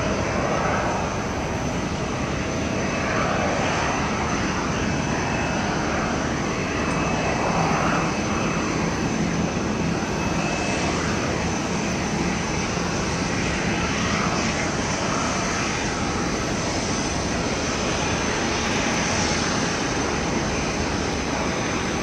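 Distant jet noise from a Boeing 737-800's CFM56-7B turbofan engines on final approach, a steady rushing sound with a thin high whine over it.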